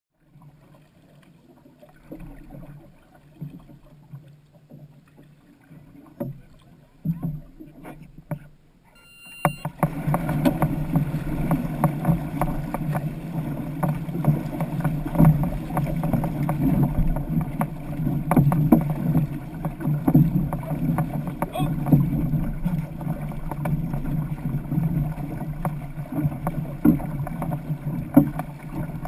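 Outrigger canoes paddled at race pace: rushing water and paddle splashes, with many short knocks and splashes running through a steady rush. This begins suddenly about nine and a half seconds in, after a quieter stretch with only a few scattered knocks.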